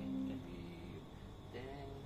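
Acoustic guitar and sape: plucked notes ringing out and fading into a short lull between phrases, with a brief sliding tone about one and a half seconds in.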